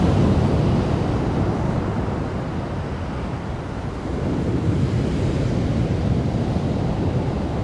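Heavy ocean surf breaking and churning, with wind rumbling on the microphone. It eases slightly in the middle, then builds again about four seconds in.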